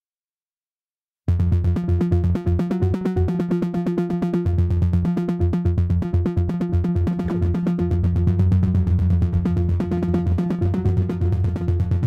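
miniKORG 700S software synthesizer playing its '3 Marimbas' arpeggio preset: a fast, dense run of short notes over low bass tones. It starts abruptly about a second in, after dead silence.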